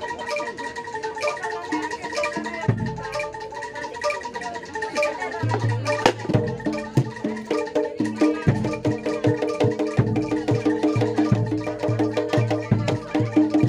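Javanese gamelan music: struck metal keyed instruments repeating a melody over drumming, with the strikes growing denser and more rhythmic after about six seconds.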